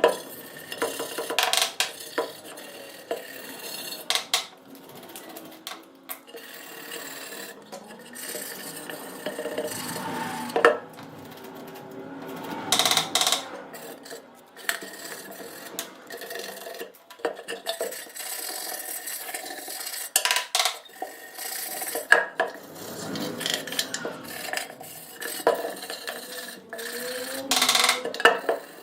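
Hand work on metal parts: scraping or filing strokes broken by irregular clanks and knocks of tools and parts being handled.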